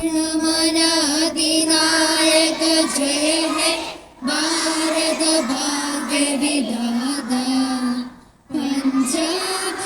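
Children's voices singing together in long held notes, with two short breaks between phrases.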